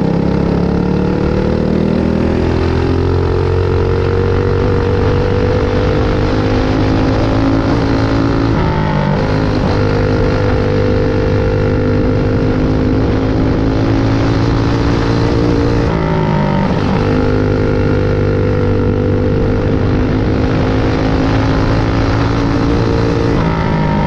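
Clone-class dirt kart's single-cylinder engine, heard from on board, running at high revs through hot laps. Its pitch climbs slowly down the straights and dips briefly three times, about every seven to eight seconds, as the throttle is lifted for the turns.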